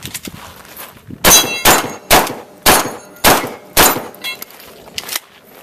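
Benelli shotgun fired six times in rapid succession, about half a second apart, with steel targets clanging and ringing as they are hit. Two fainter sharp knocks follow near the end.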